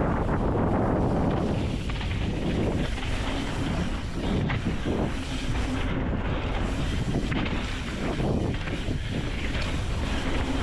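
Wind rushing over the microphone and tyres rolling on a dirt trail during a fast mountain bike descent, with a few brief knocks from the bike over bumps.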